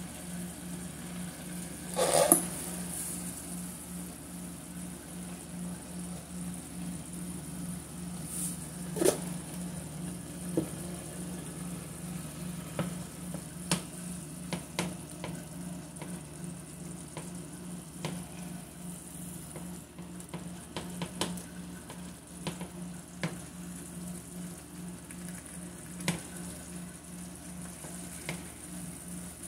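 Tomato-and-onion stew sauce sizzling in a frying pan while a silicone spatula stirs it, with scattered clicks and scrapes against the pan. A steady low hum runs underneath, and there is one short louder noise about two seconds in.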